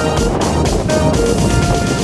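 Background music: a melody of short held notes over a dense, noisy wash.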